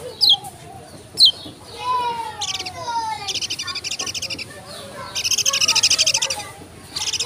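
Kecial kuning, a small white-eye, singing a fast, varied song. Two sharp, high, falling whistles come in the first second and a half, then slurred descending notes, then rapid high chattering trills, loudest about five to six seconds in.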